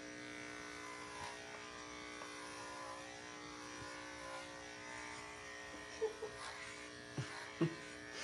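Electric dog grooming clippers running with a steady hum as they clip a cockapoo's coat short. A few brief soft knocks come near the end.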